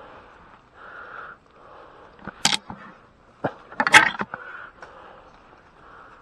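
Close handling noise of a camera being moved through grass: rustling and scraping against the microphone, with sharp bursts about two and a half seconds in and, loudest, about four seconds in.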